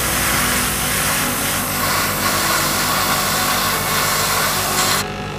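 Airbrush spraying paint: a steady hiss of air that cuts off suddenly about five seconds in, over a steady low hum.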